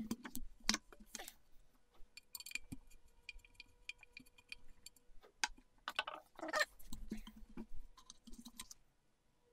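A screwdriver working the screws of the chain guard on an aluminium motorcycle swing arm (1996 Suzuki GSX-R750), with the parts being handled and shifted on the bench: scattered clicks, scrapes and knocks.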